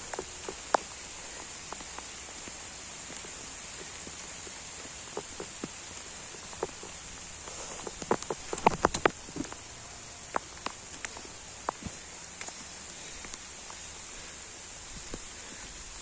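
Light rain falling steadily, with scattered taps and clicks, most of them bunched about eight to nine seconds in.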